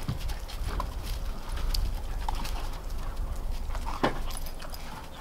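A few scattered steps crunching on snow over a low rumble, with one sharper crunch about four seconds in.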